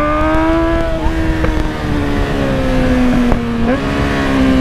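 Kawasaki Z1000 inline-four engine heard from the rider's seat at high revs. The pitch climbs slightly, then falls as the throttle is eased and the bike slows, and jumps up sharply near the end on a downshift.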